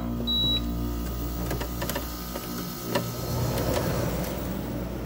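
Portable dehumidifier starting up: a short high beep from its control panel right at the start, then its fan and compressor running with a steady hum, with a couple of sharp clicks partway through.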